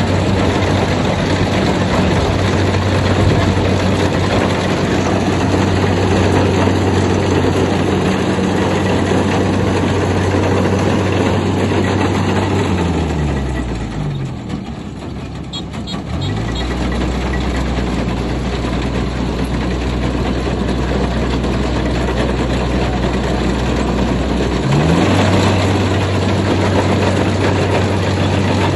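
Kubota combine harvester's diesel engine running steadily, then slowing down about halfway through, dipping briefly and settling at a lower speed for several seconds, before revving back up near the end.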